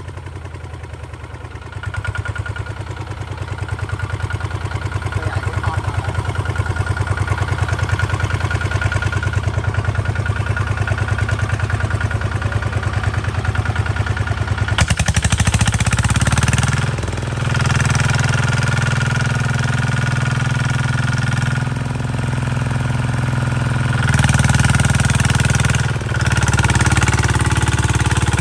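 Single-cylinder diesel engine of a two-wheel walking tractor running steadily while it tows a loaded soil trailer through soft ploughed ground. The engine gets louder about two seconds in and again about halfway through, with two brief dips in the second half.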